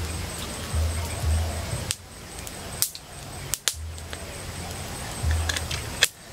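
Wood campfire crackling, with a handful of sharp pops from the burning sticks about two, three and six seconds in.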